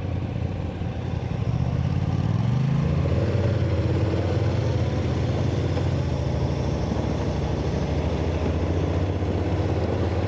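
Motorcycle engine running under way, heard from the bike as it is ridden. About two and a half seconds in the engine note rises as the bike accelerates, then holds steady.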